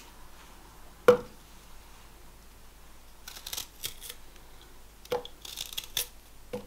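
Ginger being handled by hand for the blender: one sharp knock about a second in, then scattered soft scrapes and clicks.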